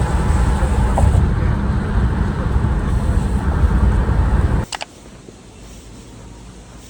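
Loud, steady low rumble, like a vehicle or engine noise, that cuts off abruptly with a click a little over halfway through, leaving a much quieter steady background.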